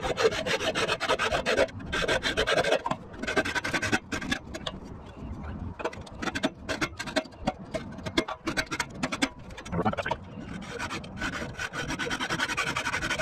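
Hacksaw cutting through a copper pipe, the blade rasping back and forth in repeated strokes.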